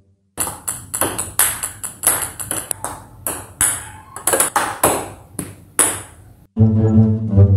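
Table tennis ball clacking against paddle and table in a quick, uneven series of about twenty sharp hits, roughly three a second. Background music comes back in near the end.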